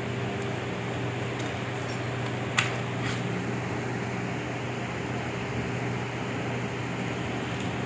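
Steady mechanical hum of running machinery: a low drone with a higher steady tone above it. A sharp click comes about two and a half seconds in, and a fainter one half a second later.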